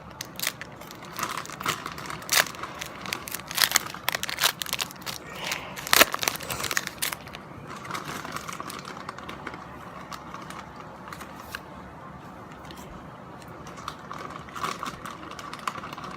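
Trading card pack wrappers crinkling and cards being handled, with many sharp crackles for about the first seven seconds, then quieter with only a few clicks.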